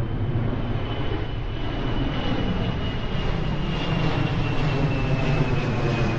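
Aircraft engines at an airport: a steady low rumble with a high whine that slowly falls in pitch as the sound grows a little louder.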